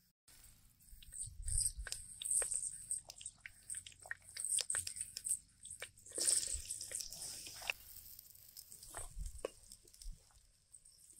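Cooking and handling sounds: scattered light clicks and knocks, with a burst of hissing about six seconds in that lasts over a second.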